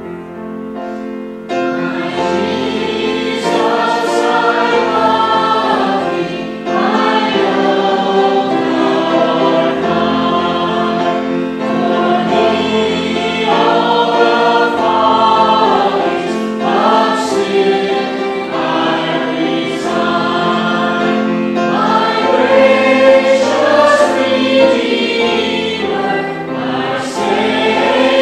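A mixed vocal quartet, three men and a woman, singing a hymn together in harmony over a piano accompaniment. The voices come in about a second and a half in, after the close of a short piano introduction.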